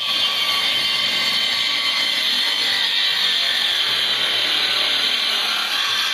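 Handheld electric circular saw cutting lengthwise along a wooden plank: a steady, high-pitched whine of the blade in the wood that holds level throughout.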